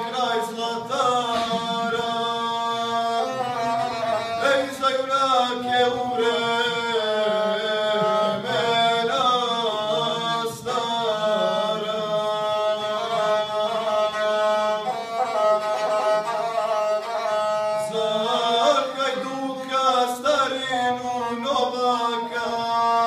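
Guslar singing a Serbian epic song to his own gusle, the one-string bowed folk fiddle, with voice and bowed string sounding together without a break.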